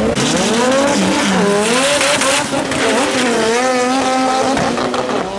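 A Mitsubishi Lancer Evolution drag car's turbocharged four-cylinder engine accelerating hard down the strip, its pitch climbing and dropping back at each gear change. From about three seconds in, race-car engines are held at high revs at the start line, the pitch wavering.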